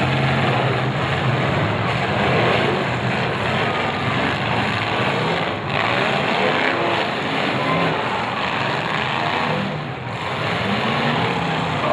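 Several demolition derby cars' engines running hard together, a dense, loud mix of engine noise with revs rising and falling as the cars accelerate across the arena.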